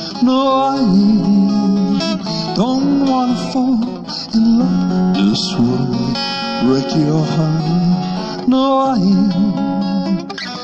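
Live acoustic guitar music without words: an instrumental passage with long, wavering melody notes that start afresh about every two seconds over held chords.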